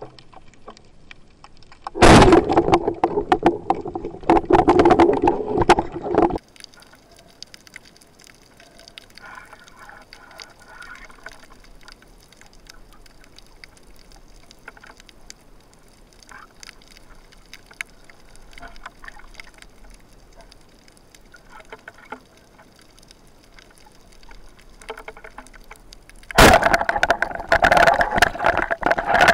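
Water rushing and sloshing against a camera housing mounted on a speargun, loud for about four seconds near the start and again for the last few seconds as the camera nears the surface, with faint underwater clicks in the quieter stretch between.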